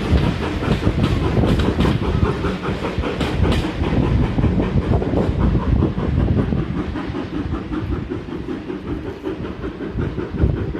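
Steam-hauled heritage train passing, its wheels clicking rhythmically over the rail joints, growing quieter over the second half as it moves away.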